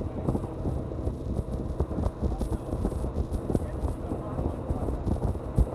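Motorboat under way on open water: a steady low engine and water rush, broken by irregular knocks as the hull meets the waves.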